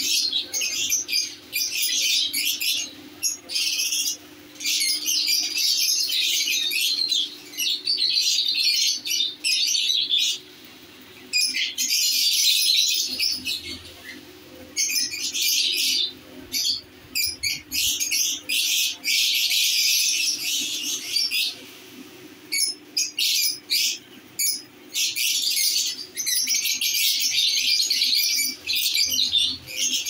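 Lovebirds chattering in a cage: shrill, dense twittering and squawking in long runs broken by short pauses, several birds calling at once. A faint steady hum sits underneath.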